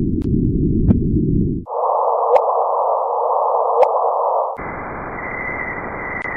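Electronic space-sound track: a steady hiss-like noise that jumps abruptly to a higher pitch twice, first with a steady low tone beneath it, then with a high tone within it, broken by a few sharp clicks.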